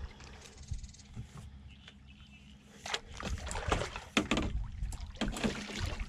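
A hooked striped bass thrashing at the surface beside the boat as it is netted: water splashing and sloshing, with several sharp splashes and knocks from about three seconds in.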